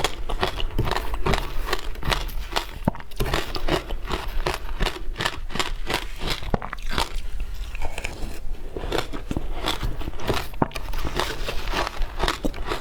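Close-miked biting and chewing of frozen matcha ice: a dense, irregular run of crisp crunches and crackles.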